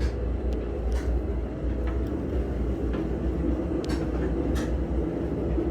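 Steady low droning hum in the cramped compartments of a museum submarine, with a few light knocks and clicks scattered through it.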